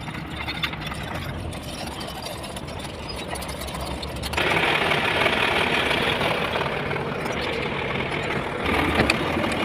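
Diesel engine of heavy construction machinery running; about four seconds in it suddenly gets louder and brighter and stays so.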